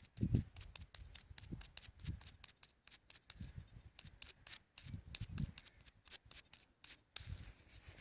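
Close scratching and rustling of hands handling soil and a freshly dug find, with many quick sharp clicks and a few low thumps from handling near the microphone.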